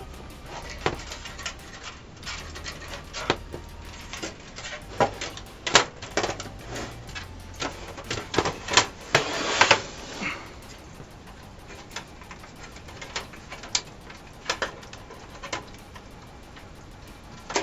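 Irregular small clicks and knocks of computer hardware being handled and fitted during PC assembly, busiest midway, with a short burst of scraping noise about nine and a half seconds in.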